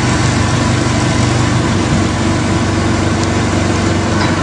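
A machine's engine idling steadily, a constant low running sound with no change in speed.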